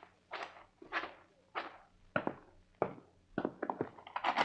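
Sound-effect footsteps: steady walking steps, a little under two a second, with a few quicker thuds near the end.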